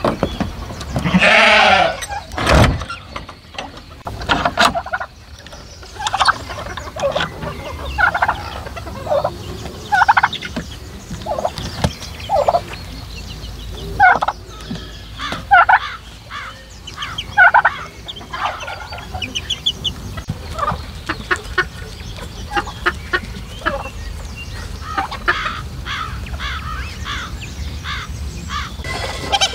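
Farmyard poultry calling: a turkey gobbling in quick rattling runs and chickens clucking, in many short calls. A wooden barn door creaks as it opens near the start, followed by one loud knock.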